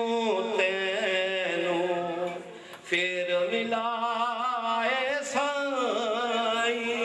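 A man singing devotional verse in a slow chant through a microphone, holding long, wavering notes. He breaks off briefly about two and a half seconds in, then sings on.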